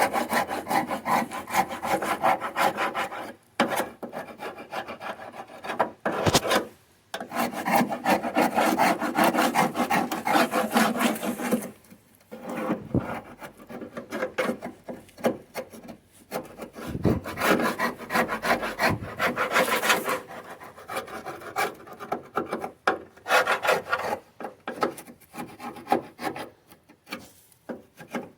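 Paint being rubbed off a Karmann Ghia's body by hand, a rapid scratchy rasping in spells of several seconds with short pauses between. The paint is coming off easily.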